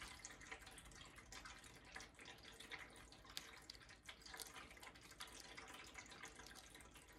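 Near silence with faint, scattered small ticks and rustles: fingers handling a lamp socket and bending its wire around a terminal screw.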